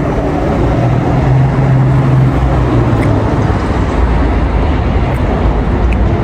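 Loud, steady low rumble of outdoor street noise like passing traffic. A low hum rises out of it about half a second in and fades by about three seconds.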